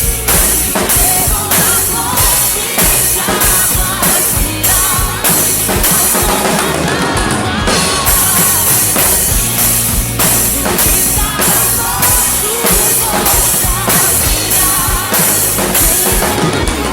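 Drum kit played along with a recorded gospel pop song: a steady beat with bass drum and cymbal hits about twice a second over the band backing. The cymbals drop out briefly about halfway through, then come back in.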